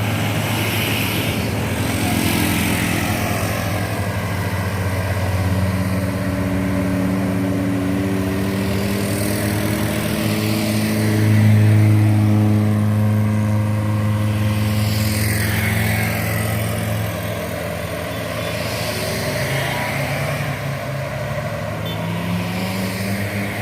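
Heavy diesel truck engine running under load, its note slowly rising and falling, loudest about halfway through.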